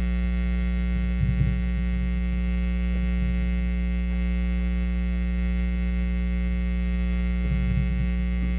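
Steady electrical mains hum and buzz in the sound system, a low hum with many higher overtones. Two faint, brief low sounds come about a second and a half in and near the end.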